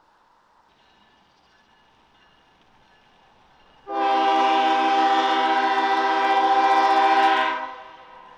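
Locomotive air horn sounding one long, steady chord of about three and a half seconds, starting a few seconds in and cutting off near the end.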